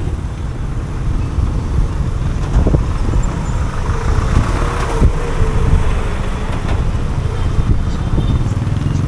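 Street traffic: motor vehicles running and passing, with a steady low rumble and a few short knocks.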